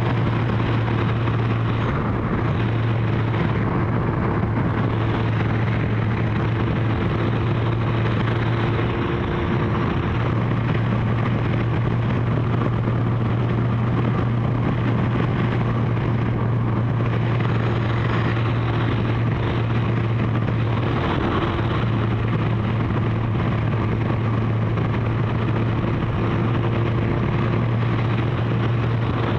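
Kawasaki GPZ1100's inline-four engine running at steady cruising revs, with wind noise rushing over the microphone. The engine note breaks briefly twice, about nine seconds in and again around twenty-one seconds.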